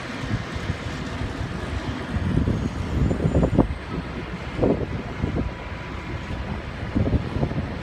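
Wind buffeting the microphone in irregular gusts, over a steady low rumble of airport ground noise with a faint, steady high whine.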